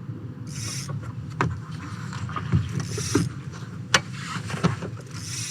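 Water slapping and swashing against a small fishing boat's hull over a steady low rumble, with a few sharp knocks on the boat.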